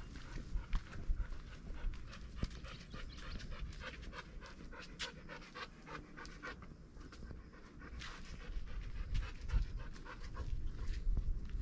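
A dog panting quickly and rhythmically, over a low rumble.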